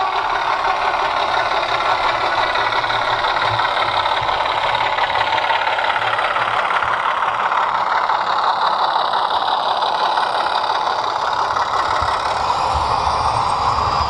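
Model class 25 diesel locomotive's DCC sound decoder playing its engine sound through the loco's small speaker, running steadily with its pitch slowly shifting up and down.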